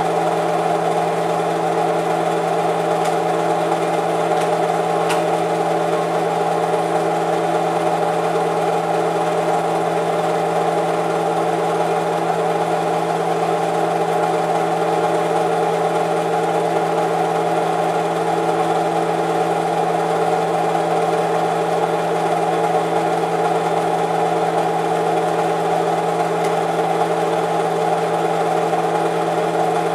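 Film projector running with a steady mechanical hum and whir that never changes.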